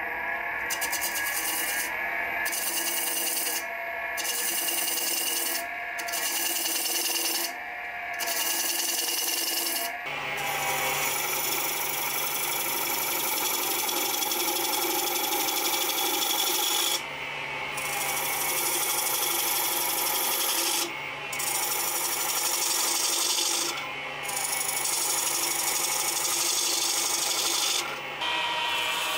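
Turning tool cutting into a spinning figured maple bowl blank on a wood lathe: a steady scraping hiss of wood being shaved away, broken by short pauses as the tool lifts off between passes. A low steady hum lies under the cutting through most of the second half.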